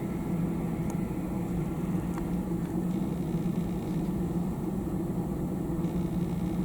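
Steady low machine hum, unchanging throughout, of the kind an idling engine or distant traffic makes.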